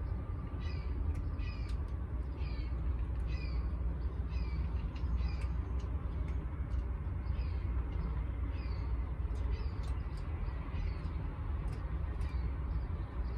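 A bird calling over and over in short, high, falling calls, roughly one or two a second, which stop near the end. Under them runs a steady low rumble of background noise.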